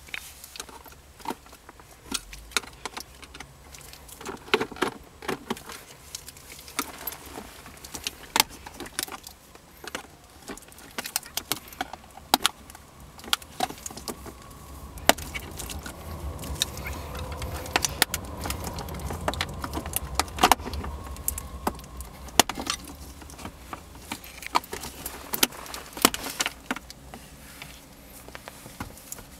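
Hard plastic console trim of a 2003-2007 Honda Accord clicking and rattling as it is handled and pried loose around the gear shifter, with many sharp clicks throughout. A low rumble swells up through the middle stretch.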